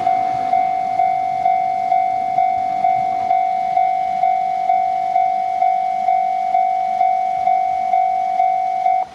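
Japanese railway level-crossing warning bell ringing, a steady electronic tone struck about twice a second. It cuts off suddenly near the end, the signal that the train has cleared the crossing.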